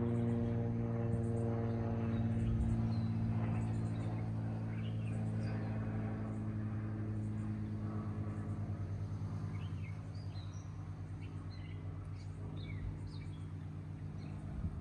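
Drone of an aircraft engine passing unseen overhead, a steady hum of several evenly spaced low tones that slowly fades. Birds chirp several times over it.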